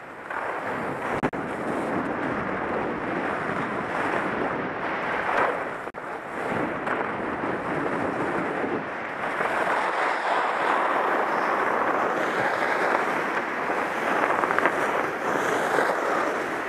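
Snowboard sliding and scraping over packed snow on a downhill run, with wind rushing across the microphone; the steady rush drops out briefly about six seconds in.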